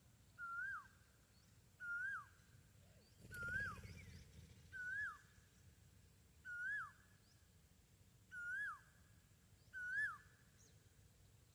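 Female grey francolin (gora teetar) calling: a short whistled note that rises and then drops steeply, repeated seven times about every one and a half seconds. A brief low thump comes about three and a half seconds in.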